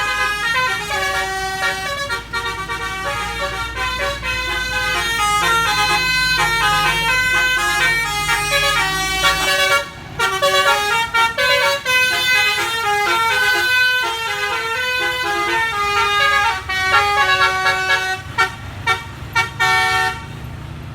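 Basuri telolet multi-trumpet air horn on a bus playing a fast tune of quickly changing notes, breaking into short stabs near the end. A low engine rumble runs underneath for about the first half.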